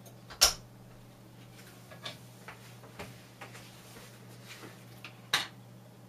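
Two sharp clicks about five seconds apart, the first the louder, with a few faint ticks between, from a wall light pushbutton wired to an Arduino-controlled relay being pressed and switching.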